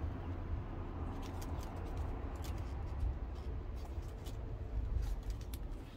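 Scattered light clicks and taps of engine-bay parts being handled, over a low rumble of handling noise on the microphone.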